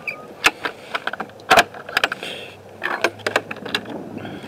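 A run of sharp clicks and knocks from hands and the camera working around a wooden chicken-coop nest box. A low steady hum comes in about three seconds in.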